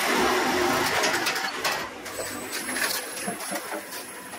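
Old sheet-fed printing press running: a loud, steady mechanical noise that drops away a little under two seconds in, leaving quieter machine clatter with scattered clicks and knocks.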